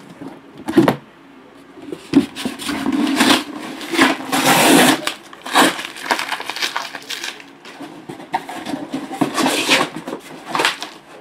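Shrink-wrapped cardboard trading-card boxes being handled: irregular crinkling and scraping of plastic and cardboard, with sharp knocks as the boxes are moved and set down.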